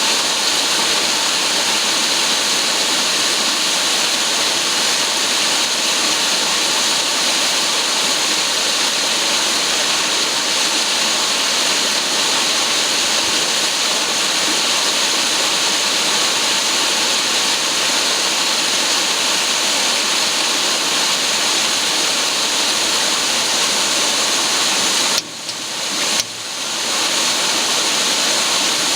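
Duct-cleaning vacuum cleaner running steadily with a loud rushing whine. Near the end it cuts out twice in quick succession and spins back up.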